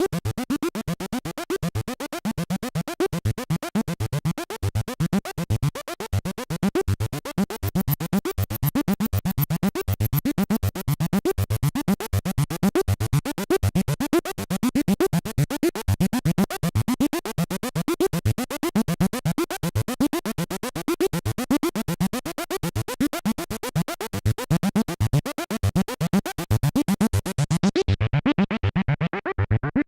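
Prophet '08 analog synthesizer playing a rapid stream of short repeated notes, the low notes sliding down in pitch. Near the end the bright upper sound falls away, leaving a duller tone.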